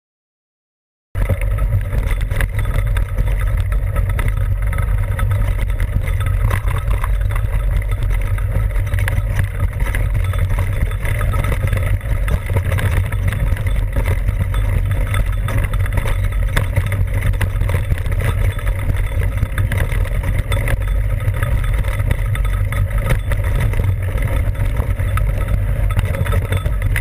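Steady wind rumble buffeting the ride camera's microphone, mixed with the tyre and frame rattle of a mountain bike ridden fast over a rocky dirt trail. It cuts in abruptly about a second in.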